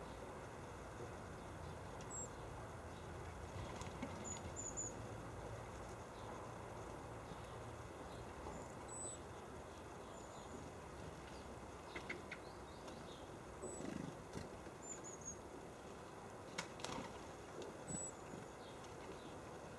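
Small birds at a winter feeder giving brief, thin, very high calls every second or two over a steady outdoor hiss, with a few faint clicks.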